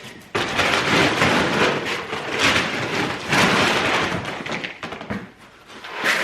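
Dry horse feed pellets being scooped and poured into a container: a dense rattling rush with some knocks, starting sharply just after the start and easing off near the end.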